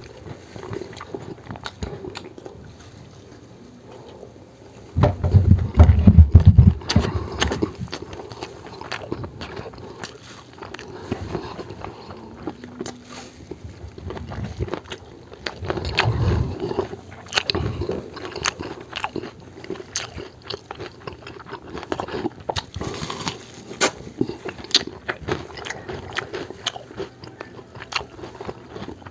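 Close-miked eating: crisp bites and wet chewing of a meal of spicy adobo, egg and cucumber, with many small clicking mouth sounds. There are louder low-pitched bursts about five to seven seconds in and again around sixteen seconds.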